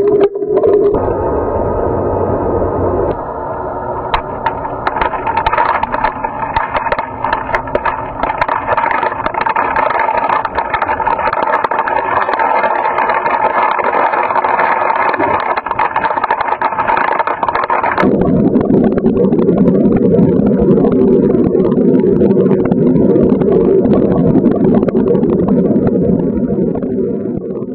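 Hammer-Head commercial pool vacuum's motor running steadily, turning deeper about 18 seconds in.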